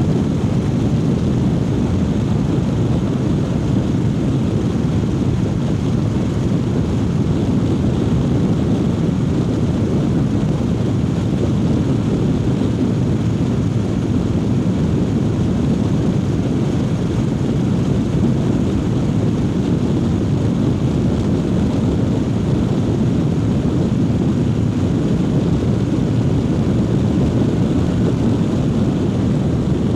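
Triumph Speed Twin 900's parallel-twin engine running at a steady cruise on the move, as a constant rumble mixed with riding wind noise and no revving changes.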